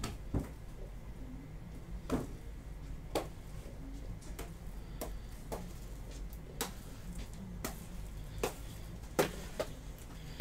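Irregular light clicks and knocks of objects being handled out of view, over a steady low room hum.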